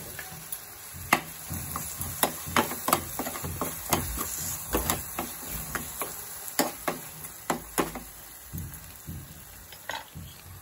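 A steel spoon stirring cream into onion-tomato masala in a steel pan, clinking and scraping against the pan in irregular sharp clicks. The clicks thin out over the last couple of seconds.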